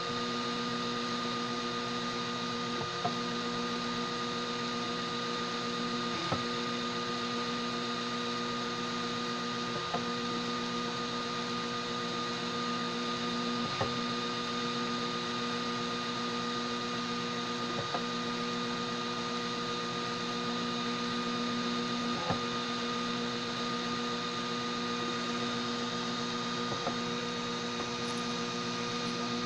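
Homemade DIY 3D printer running mid-print: a steady machine hum and whine, with a light tick about every four seconds.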